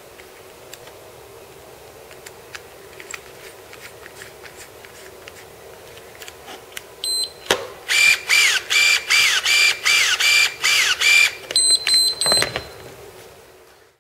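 Bahco 9320 electric pruning shears starting up: a short electronic beep, then the motor-driven blade opening and closing repeatedly, about two strokes a second, each with a falling motor whine, followed by a few more short beeps. The tool is running normally after its activation procedure.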